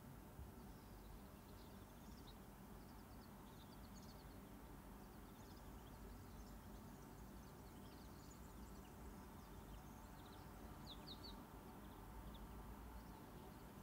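Near silence: low steady room hum with faint, scattered bird chirps, a few clearer ones near the end.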